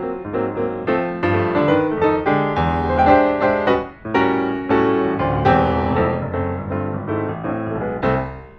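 Background piano music with a quick run of notes that fades near the end.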